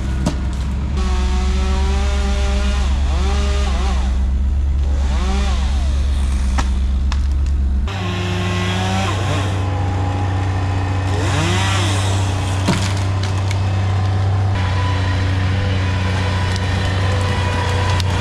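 A chainsaw revving up and down several times over the steady low drone of a large engine running.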